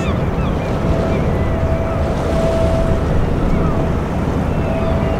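Low, steady rumble of a harbour tug's and a container ship's engines over water, with wind on the microphone. A steady mid-pitched hum fades out a little past halfway and returns near the end.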